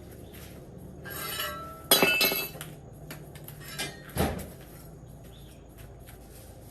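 Hard objects clinking and knocking together. A short clatter about a second in is followed by a loud, ringing clink about two seconds in and a sharper knock about four seconds in.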